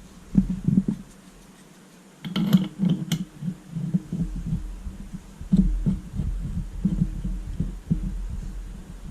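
Hand tools and a flywheel puller being threaded on and worked against a motorcycle engine's flywheel. There are a few sharp metal clinks a couple of seconds in, among a run of low, irregular knocks and thumps.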